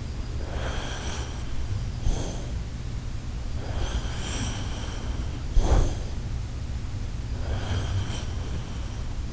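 Sleeping Shiba Inu snoring: five noisy breaths a second or two apart, some with a thin whistle, and one short sharp snort, the loudest sound, a little before six seconds in. A steady low hum sits underneath.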